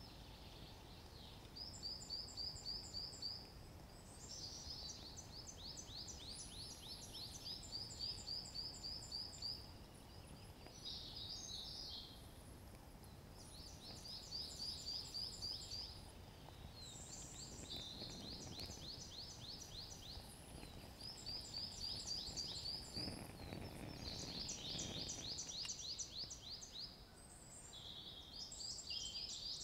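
Small songbirds singing in woodland: high, rapid trills of quick chirps, one phrase after another with short gaps between.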